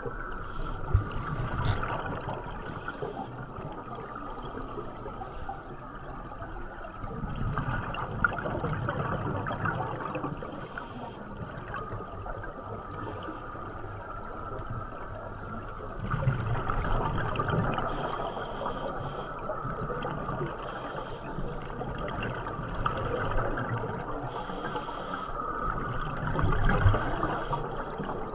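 Underwater noise heard through a camera housing: scuba divers' exhaled bubbles gurgling, louder in swells about every eight to ten seconds, with a steady muffled rush between them.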